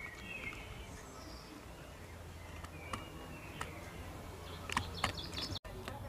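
Small songbirds giving short, high chirps and calls every second or so. Near the end there is a cluster of sharp clicks.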